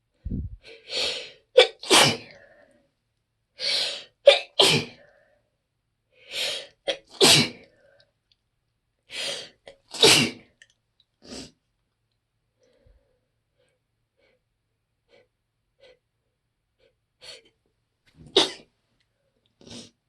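A person's sneezes, one after another, each preceded by a quick breath in: a string of about half a dozen in the first half, a quiet pause, then a couple more near the end. They are allergy sneezes, set off by tree pollen.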